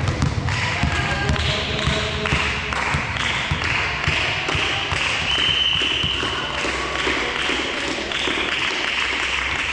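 Volleyball being played on an indoor court: frequent short knocks and thuds of the ball and of feet on the floor, with a few brief high squeaks.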